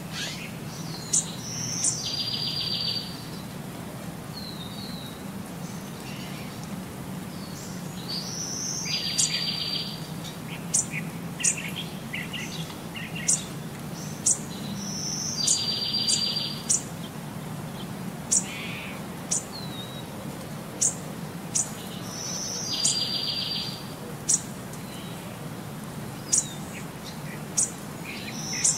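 Birds chirping, with sharp short calls and a repeated song phrase ending in a buzzy trill that comes back about every seven seconds, over a low steady hum.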